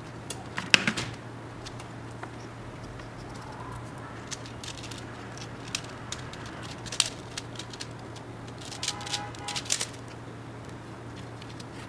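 Handling of a plastic tool case and the small metal tools in it: scattered clicks, taps and rattles as pieces are lifted out and set down on a table, the loudest near the start and a short clatter about nine seconds in.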